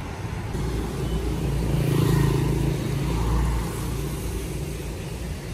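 Pickup truck's engine running as it moves along a wet street, with tyre noise on the road. The engine hum swells and is loudest about two seconds in, then fades back.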